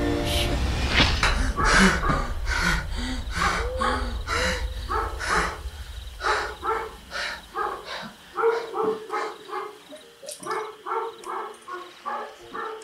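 A dog barking over and over, about two barks a second. A low rumble underneath stops about two-thirds of the way through.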